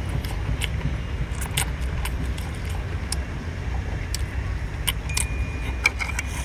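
Chewing and mouth smacks as scallop meat is eaten, heard as scattered sharp clicks, over a steady low rumble.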